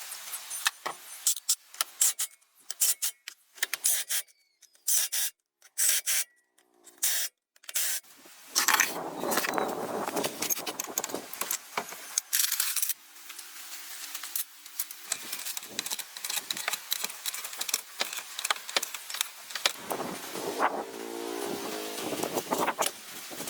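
Hand repair work on a vehicle: scraping, rubbing and sharp metallic clicks in short edited snippets. There are abrupt cuts to silence in the first few seconds, and a brief hum from a small tool or motor twice later on.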